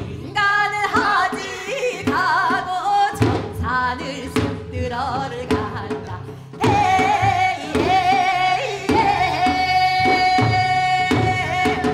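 A woman singing Seodo sori, Korean western-provinces folk song, in a wavering line with heavy vibrato over regular drum strokes, holding one long note near the end.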